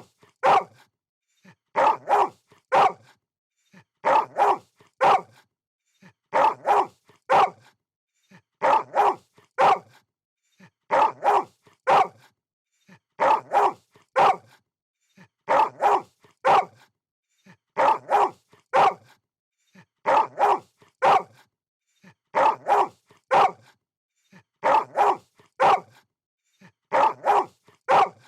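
A dog barking in quick groups of about three barks, the groups repeating every two seconds or so in an even, looped pattern.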